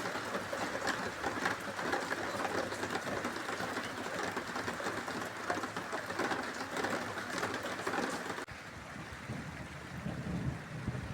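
Steady rain falling, a dense noise full of fine drop ticks. About eight seconds in it cuts off abruptly to a quieter, lower rush of rain or running water.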